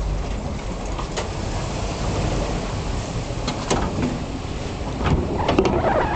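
Car driving slowly off a small car ferry: a low engine rumble with a few sharp clanks, more of them near the end as the tyres reach the steel-grid landing ramp.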